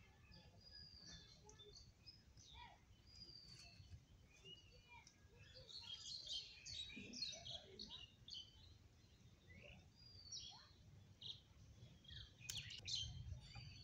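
Faint chirping of small birds: many short, quick calls and little slurred whistles, busiest about halfway through and again near the end, with one sharp click near the end.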